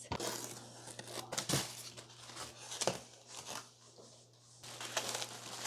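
Cardboard shipping box being opened: tape and cardboard tearing and packaging rustling in scattered, irregular bursts, with a few sharp clicks.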